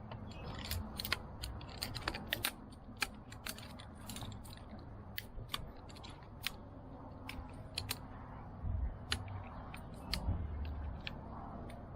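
Irregular light clicks and taps of camping gear being handled and set up, with two brief low thumps near the end.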